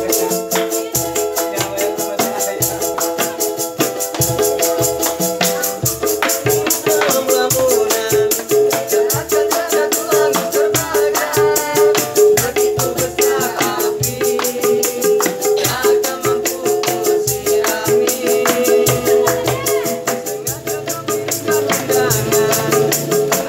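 A small acoustic busking band: a ukulele strummed with two small hand drums and a tambourine keeping a fast, steady jangle. Voices come in singing a few seconds in.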